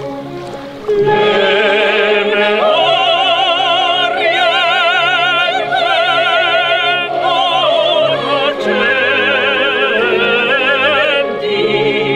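Soprano and tenor singing opera together, both voices with a wide vibrato. The soprano holds long high notes over the tenor's lower line, and the singing swells up loudly about a second in.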